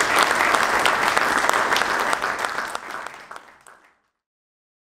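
Audience applauding, the clapping fading out to silence about three and a half seconds in.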